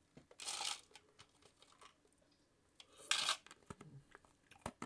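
Someone eating close to a microphone: two short crunching bites about three seconds apart, with small clicks and mouth noises between them.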